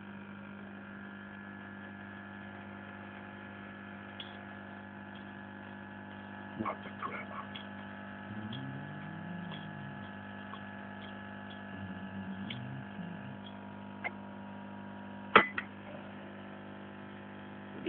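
E61 espresso machine's pump humming steadily while espresso runs from the spouts into two glasses. A few light clicks come partway through, and one sharp knock near the end.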